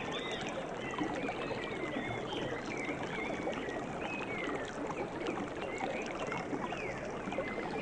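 Steady rush of running water, with many small birds chirping over it in quick, short calls.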